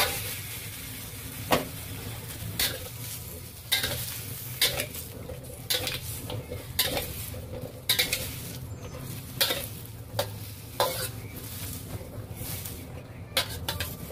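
Long metal spatula stir-frying chunks of gourd in a stainless steel wok, with a steady sizzle of frying. Sharp scrapes and clinks of the spatula on the wok come about once a second.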